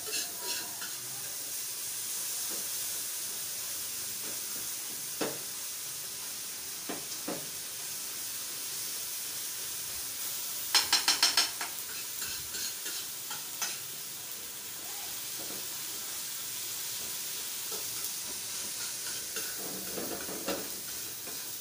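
Chopped tomatoes sizzling steadily on a hot flat griddle pan as they are stirred and pressed with a metal spatula and tongs, with scattered scrapes and taps of the utensils on the pan. About halfway through comes a quick run of sharp metal clicks.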